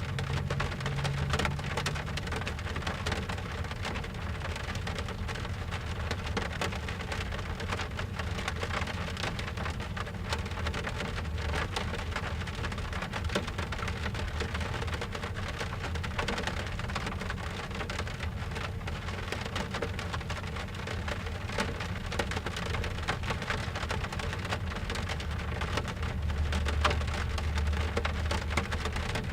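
Rain drumming on a car's roof and windows, heard from inside the cabin: a dense, steady patter of drops, muffled by the car body. A low rumble swells near the end.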